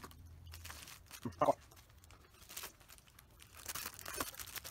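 Plastic mailer bag crinkling and tearing as it is pulled open by hand, with a brief voice sound about a second and a half in.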